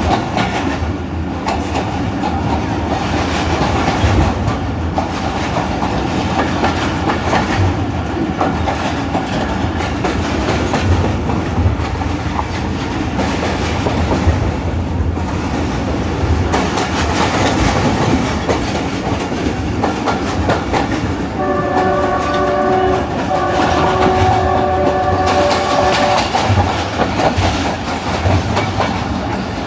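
Pakistan Railways passenger train running along the track, heard from on board: a steady rumble with the clickety-clack of wheels over rail joints. About two-thirds of the way in the train horn sounds, two long blasts in quick succession.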